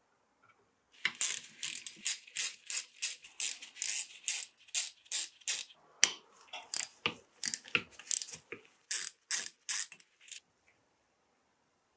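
Hand ratchet driver clicking in quick strokes, about three a second, as it backs a Torx screw out of an Ingersoll Rand 2190Ti impact wrench's housing. The clicking starts about a second in and stops shortly before the end.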